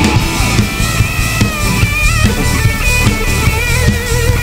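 Live rock-style worship band playing an instrumental passage between vocal lines: electric guitars over a steady drum-kit beat, with a bending lead melody on top.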